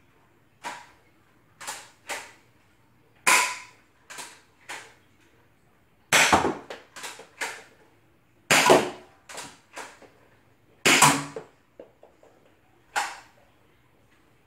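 Nerf Rival Knockout spring blaster, converted to fire half darts, being primed and shot again and again: a string of sharp plastic clacks and snaps. The loudest four come about two and a half seconds apart, with quieter clicks of handling and reloading between.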